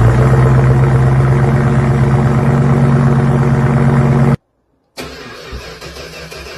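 Car engine running loudly at a steady idle, its tone even. A little over four seconds in, the sound cuts off abruptly; after about half a second of silence, a quieter engine is heard idling.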